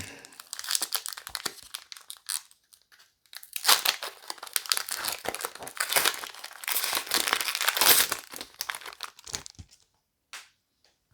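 A trading-card booster pack's wrapper being torn open and crinkled by hand, in a short spell of crackling and then a longer one from about three seconds in that stops near the end.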